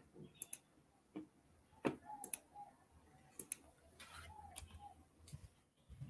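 Faint, irregular clicks of computer keyboard keys and a mouse as text is typed into a web page editor, with the loudest click about two seconds in.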